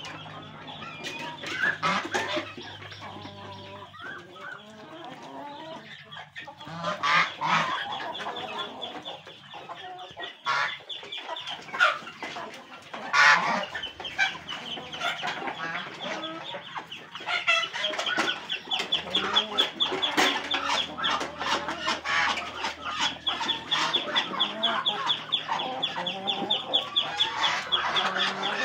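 Chickens clucking amid a mixed flock of chickens, ducks and geese feeding together at a rice basin, with a few louder squawks. From about halfway on there is a dense, fast run of short clicks.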